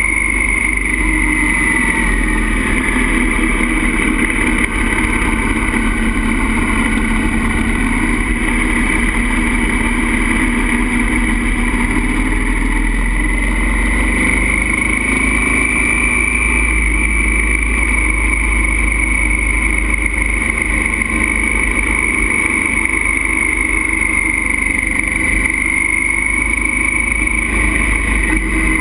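Motorcycle engine running at cruising speed through curves, with wind rushing over the microphone. A high whine in the engine sound rises and falls slowly in pitch.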